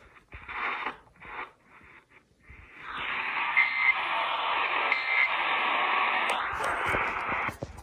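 Radio static over a receiver: broken bursts of hiss at first, then a steady hiss from about three seconds in with two brief faint tones in it, cutting off just before the end.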